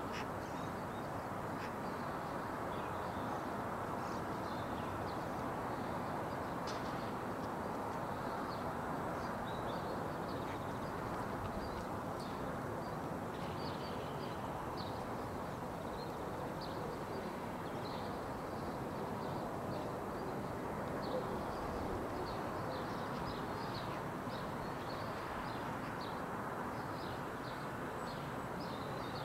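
Outdoor ambience: a steady low rush with frequent faint, high-pitched chirps from small birds.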